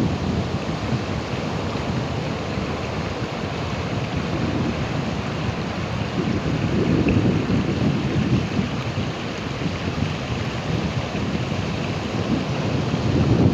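Ocean waves breaking and washing in a continuous rush of surf, with slow swells of louder surges about seven seconds in and again near the end.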